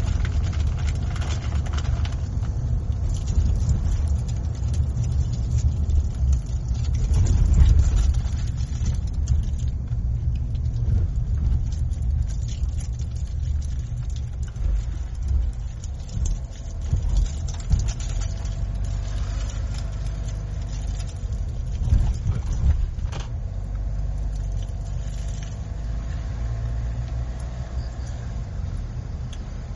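Car driving along a road: a steady low rumble of tyres and engine. It swells briefly about seven seconds in, with a few short knocks or rattles scattered through.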